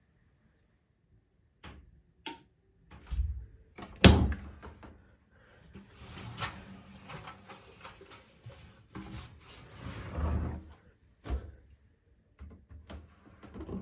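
Clicks and knocks of a Candy front-loading washing machine being handled, probably its door or detergent drawer being opened at the end of the cycle. There is a loud clunk about four seconds in, then a few seconds of rustling handling noise and another sharp click near the end.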